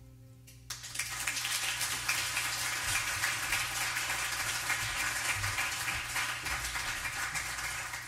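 The last piano chord of a song dies away, then audience applause starts about a second in and holds steady.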